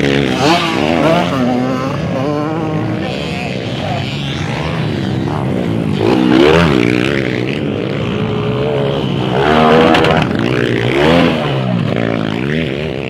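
Motocross dirt bike engines revving hard, their pitch climbing and dropping again and again as the bikes accelerate and shift, loudest about six and ten seconds in.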